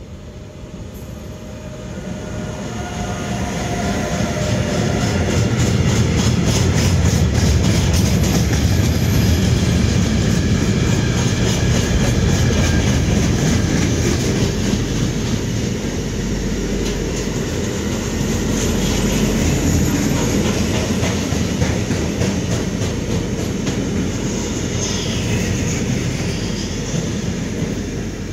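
A freight train of loaded steel-coil wagons, hauled by a Bombardier Traxx E186 electric locomotive, passes close by. The wheels clickety-clack evenly over the rails. The sound builds over the first few seconds, then stays loud as the long rake of wagons rolls past.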